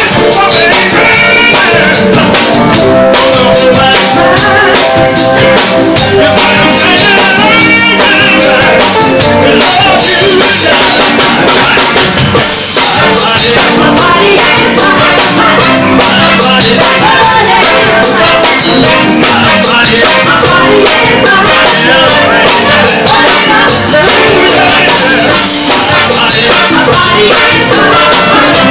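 A soul-funk band playing loudly: singers over a horn section, congas, keyboard and drum kit.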